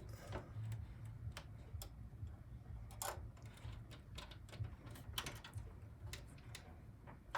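Irregular small metallic clicks and ticks of a screwdriver working a drive-mounting screw into the metal drive cage of a Power Mac G4, over a steady low hum.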